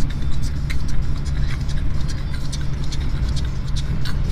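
Beatboxing: quick mouth clicks and hissing hi-hat strokes in an irregular rhythm, over the steady low drone of a truck's engine heard inside the cab.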